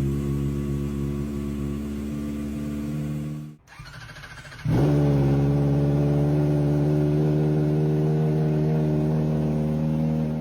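Kawasaki Ninja motorcycle engine held at steady revs with a constant pitch. It cuts out about three and a half seconds in, then comes back a second later with a brief rise before holding steady again.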